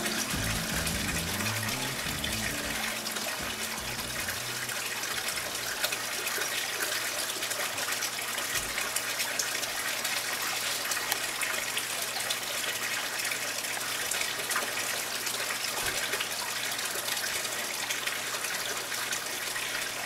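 Steady hiss of running water, even and unbroken.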